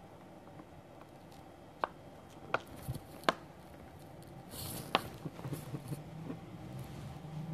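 Close handling noise: four or five sharp clicks and taps about a second apart, with a short rustle just before the last one, then a low hum near the end.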